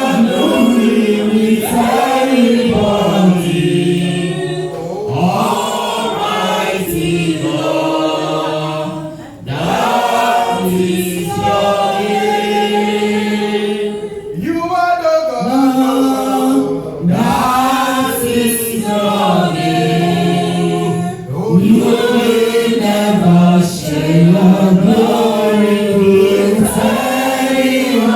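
A congregation or church choir singing a hymn together, with long held notes and brief pauses between phrases.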